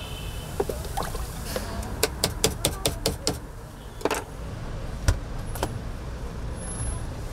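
Sharp clacks of utensils being worked: a few single knocks, then a quick run of about eight clacks in under two seconds, then two or three more single knocks. A steady low rumble of street traffic lies under them.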